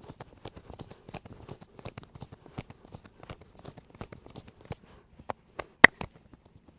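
Fast percussive massage strokes, hands slapping and tapping on the body, several a second. Near the end they slow to a few harder strikes, one a much louder, sharp snap.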